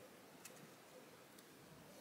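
Near silence: room tone, with a couple of faint ticks.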